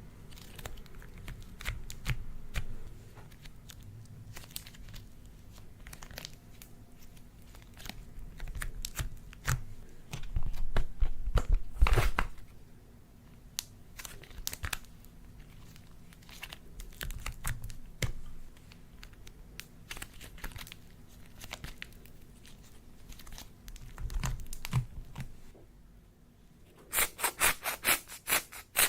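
Slime being kneaded, stretched and pulled apart close to the microphone: sticky clicks, crackles and soft tearing sounds, with a few low squelching thumps. Near the end comes a quick, even run of sticky clicks, about five or six a second.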